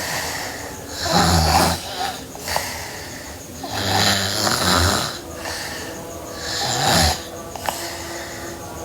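Sleeping girl snoring: three snoring breaths about three seconds apart, each a low buzzing tone under breathy noise.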